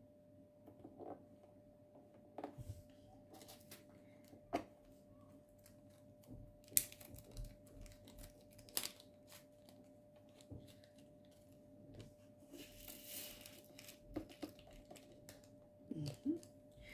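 Handling of small plastic diamond painting drill containers and zip-lock bags: scattered sharp plastic clicks, with a short rustle about thirteen seconds in, over a faint steady hum.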